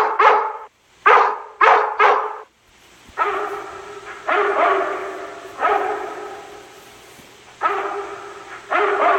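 Dogs barking: a few quick, sharp barks in the first two seconds, then a slower series of about five longer, drawn-out barks, each trailing away, roughly a second apart.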